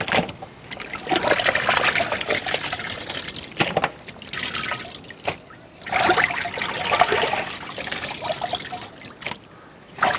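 Water splashing and trickling as small chicken pieces are rinsed by hand in a vessel of water, in three bouts with sharp little splashes.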